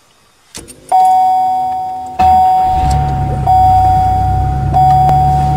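A ringing tone at one pitch, struck about every second and a half and fading between strikes, over a low steady hum that comes in about two seconds in.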